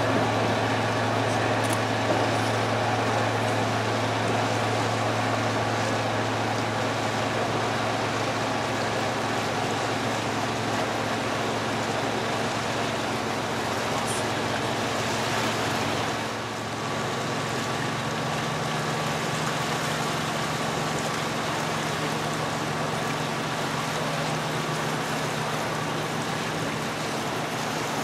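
Pusher tug's diesel engine running steadily as it manoeuvres a loaded barge, its low hum stepping up to a higher pitch a little over halfway through as the engine speed changes.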